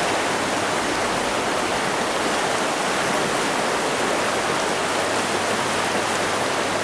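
Trout stream rushing over a rocky riffle: a steady, even rush of flowing water.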